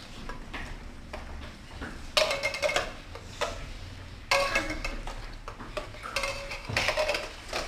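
Light plastic cups knocking and clattering on a tabletop in short flurries of quick taps, as they are flipped and set down.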